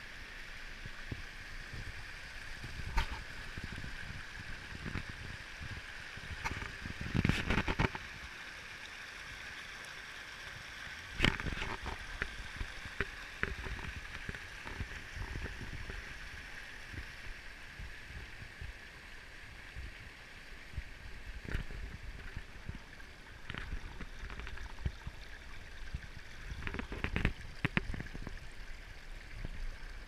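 Small mountain stream rushing and splashing down over rocks in a steady hiss, with a few short, dull bumps, the loudest about seven and eleven seconds in.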